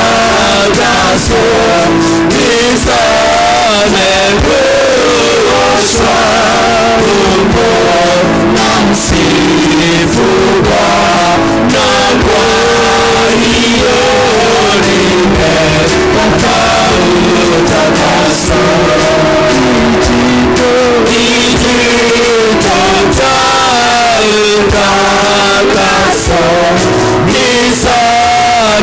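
Music with singing voices, loud and continuous.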